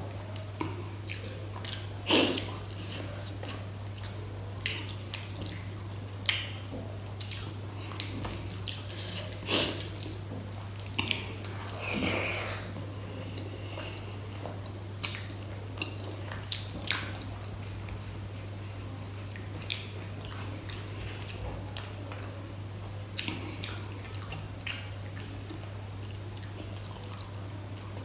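Close-up eating sounds: wet squishing and smacking as rice and kadhi are mixed and eaten by hand from a steel plate, with irregular short clicks of chewing and lip smacks. A steady low hum runs underneath.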